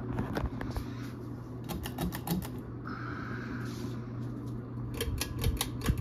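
Many ceiling fans running together on medium speed with a steady low hum, broken by bursts of sharp clicking.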